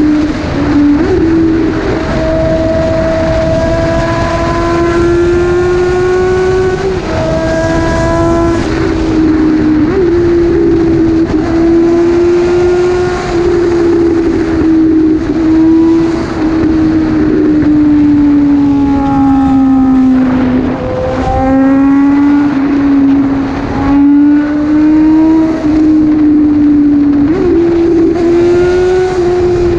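Suzuki Bandit 650N's inline-four engine running at high revs at highway speed, its pitch holding mostly steady with small rises and steps as the throttle changes. About two-thirds of the way through the pitch sags, then jumps back up. Wind rushes over the microphone throughout.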